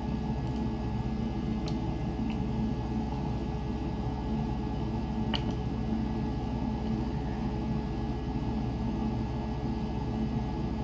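Steady low hum of a switched-on 3D printer, with a few faint clicks from the rotary knob of its LCD controller as it is turned and pressed to scroll the menu.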